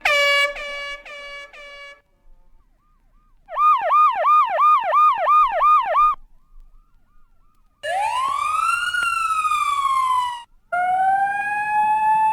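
A run of siren sound effects: first a horn-like blast that repeats four times, fading like an echo; then a fast yelping siren sweeping up and down about three times a second; then a slow wail that rises and falls once; and near the end another siren tone that rises and holds.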